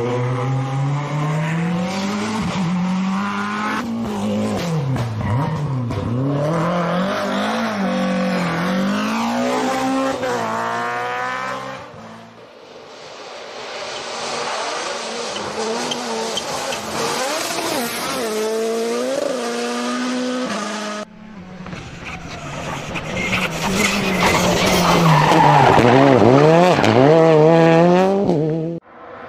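Rally cars racing on a stage, engines revving up and dropping again and again through gear changes and lifts, with tyre skids and loose-surface noise. Several clips are cut together, the sound changing abruptly between them, and the loudest is a hard acceleration near the end.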